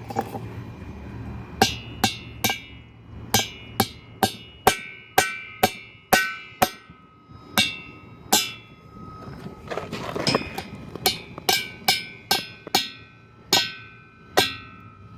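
A hammer repeatedly striking the tops of wedge anchor bolts to drive them into holes in a concrete wall. About two dozen sharp metallic blows come in quick irregular runs, each with a brief ringing after it, with a short pause near the middle.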